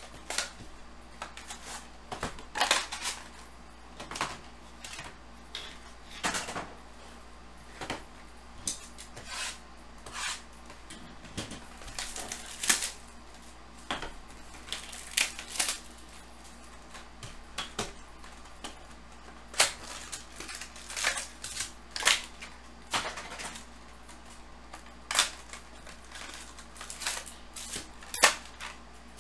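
A cardboard trading-card hobby box is opened by hand and its wrapped card packs are handled and set down in stacks on a table: irregular crinkles, taps and rustles.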